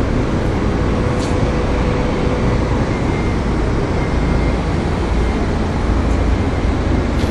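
Steady outdoor city background noise: a continuous low rumble with a hiss above it and a faint steady hum.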